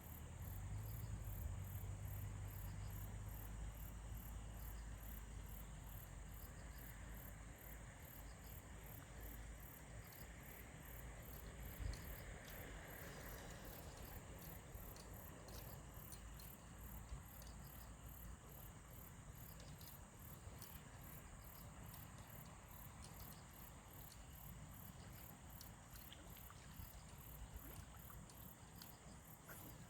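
Crickets chirping in a fast, even, high-pitched pulse, faint, over a low rumble that is strongest in the first few seconds. A single short knock comes about twelve seconds in.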